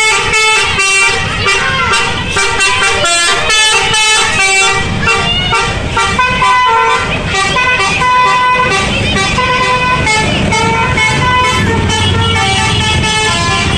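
Bus 'telolet' multi-tone air horn playing a melody of quick stepped notes, then some longer held notes midway, over a low rumble that strengthens near the end.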